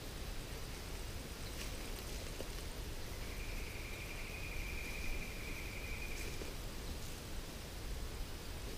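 Bushland ambience with a steady low rumble; an insect gives one steady, high, buzzing trill lasting about three seconds in the middle. A few faint clicks are heard.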